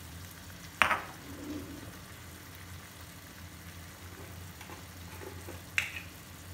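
Tomato sauce with onion and garlic sizzling gently in a nonstick frying pan on a gas burner. Two sharp clicks come about a second in and again near the end.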